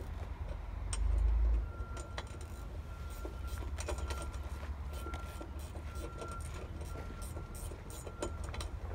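Wind noise on the microphone, with a stronger gust about a second in, under scattered light clicks and knocks of hardware being handled as homemade outrigger stabilizers are fitted to a canoe. A faint steady high tone sounds from about two seconds in.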